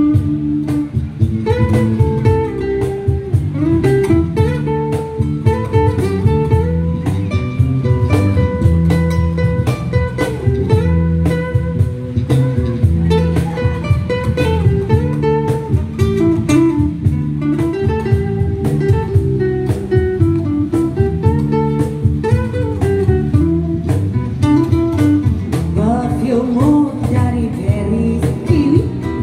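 Live acoustic band playing a dangdut song: an acoustic guitar picks a melodic instrumental passage over a steady bass line, and the singer's voice comes back in near the end.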